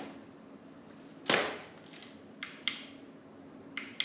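Handheld spotlights being handled on a work table: a loud knock with a short ring about a second in, then several sharp clicks, including a light's power switch as another beam comes on. A low steady hum runs underneath.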